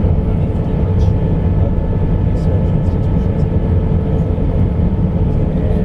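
Airbus A320 cabin noise on final approach: a steady roar of engines and airflow with a steady hum running through it.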